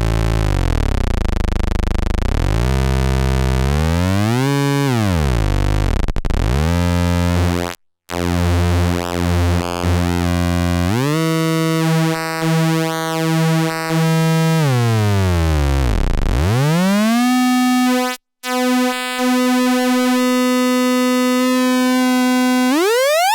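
Weston Precision Audio TZO through-zero Eurorack VCO sounding a continuous synth tone rich in harmonics, its pitch and timbre sweeping down and up. It drops out briefly twice, settles into steady held tones, and ends with a fast rising pitch glide.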